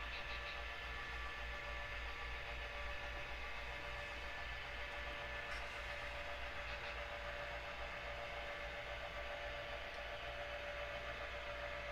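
A steady low hum under an even hiss, with a faint steady tone above it.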